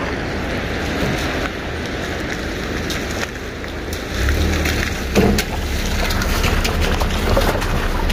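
A car approaching on a gravel dirt road: its engine rumble and tyres on the gravel grow louder from about halfway through, over a steady noisy hiss, with a few scattered clicks.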